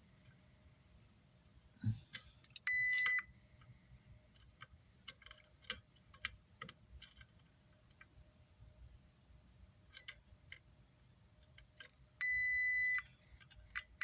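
A digital multimeter's continuity beeper sounds twice: a short beep about three seconds in and a longer one near the end. Its probes tap and click on the amplifier's circuit board in between while it is checked for a short.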